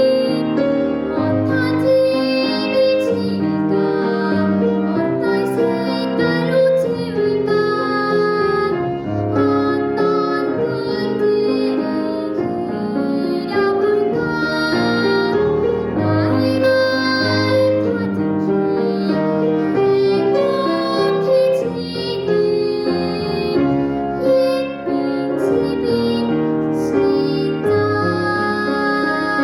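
A child singing a Korean children's song (dongyo) solo with piano accompaniment, a sustained melody with vibrato over steady chords.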